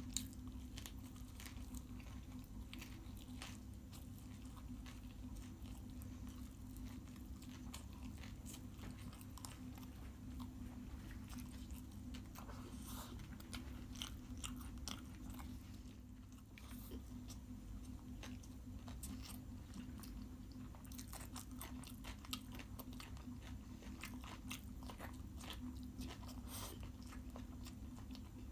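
Close-up eating sounds: a person biting and chewing egg roll and chicken biryani eaten by hand, with many small wet mouth clicks and smacks. A steady low hum runs underneath.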